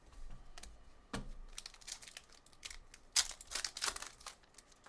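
Trading cards and foil pack wrappers being handled: light clicks and taps, with a burst of crinkling about three seconds in.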